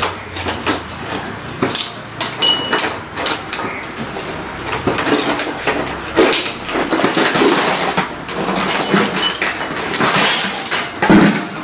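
Irregular clatter of knocks and clinks, like hard objects being handled and set down, going on throughout.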